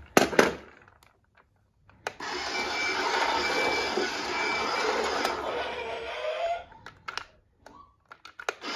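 Battery-powered remote-control toy car whirring as it drives and turns, mixed with electronic beeps and sound effects from its built-in speaker for about four and a half seconds mid-way. Two sharp knocks at the start and a few clicks and a short beep near the end.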